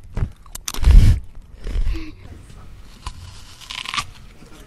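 Close-miked ASMR mouth and handling noises into a foam-covered microphone: clicks, then a loud muffled thump against the mic about a second in. Just before the end, a crisp crunch as an apple is bitten right at the microphone.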